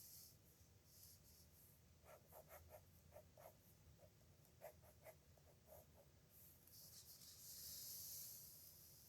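A pen writing on paper. A quick run of short scratching strokes with small squeaks is followed, about six and a half seconds in, by one longer, louder scratch.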